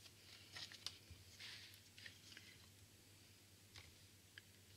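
Near silence with a few faint light clicks and a brief soft rustle in the first two seconds: cardstock being slid into place on a rotary paper trimmer.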